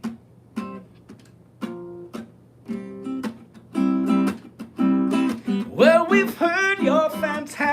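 Guitar chords strummed about once a second, each ringing out and fading, with a man's singing voice coming in over them near the end.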